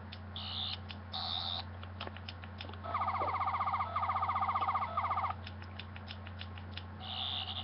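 11th Doctor toy sonic screwdriver playing its electronic sound effects: two short high beeps, then a rapidly pulsing, warbling whine for about two seconds, broken twice, with small button clicks around it.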